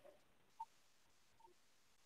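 Near silence: room tone, with one faint short tick about half a second in.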